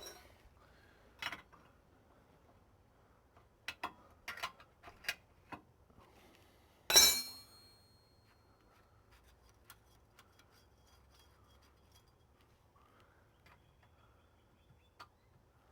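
A metal spanner clinking and tapping against the differential's drain bolt: a few light clicks, then one loud metallic clang with a short ring about seven seconds in, and a few faint ticks after.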